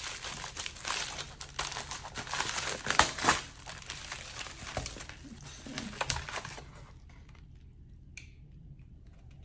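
Pink bubble-wrap packing crinkling and crackling as it is handled and pulled open, with the loudest crackles about three seconds in. The rustling stops about two-thirds of the way through.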